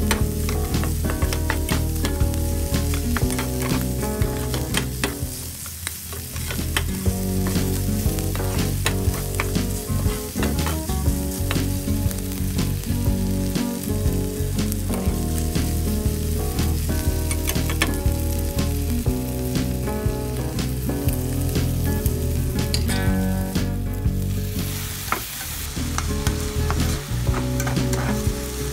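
Ground pork, garlic and onions sizzling as they sauté in oil in a pan, stirred with a spatula that clicks and scrapes against the pan many times. The sizzle dips briefly twice.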